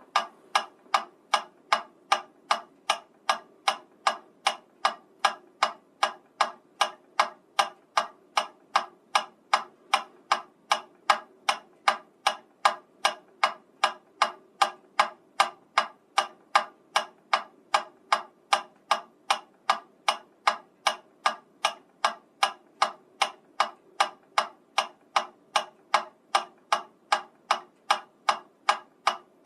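Metronome ticking at a steady tempo of about two even clicks a second, with no accented beat.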